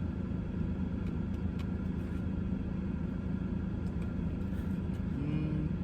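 Steady low rumble like a running car's engine heard from inside the cabin, with no words over it.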